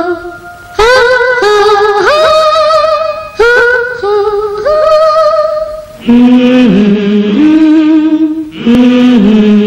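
Music with a singing voice holding long, wavering notes that slide into each new pitch; about six seconds in the melody moves to a lower register.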